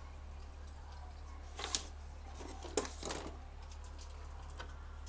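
A few sharp clicks and knocks, four in all, over a steady low hum.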